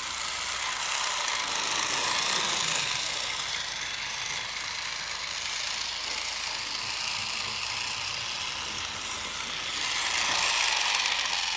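Battery-powered toy train's small electric motor and gears whirring steadily as it runs around its track, getting louder about ten seconds in.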